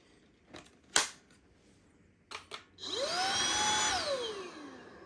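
Xiaomi Mi Vacuum Cleaner Lite 2 cordless vacuum's motor switched on briefly: it whines up in pitch, runs steadily for about a second, then winds down, falling in pitch. A sharp click about a second in.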